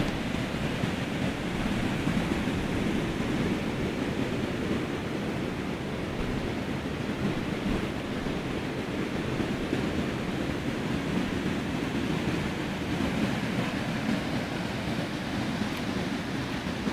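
Swollen river in flood pouring through a weir and churning downstream: a steady, deep rushing of water with no let-up.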